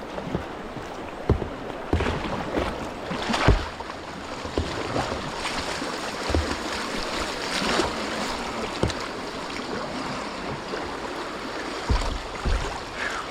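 Kayak paddling on a river: steady rushing water with irregular sharper splashes as the paddle blades dip, the loudest about three and a half seconds in.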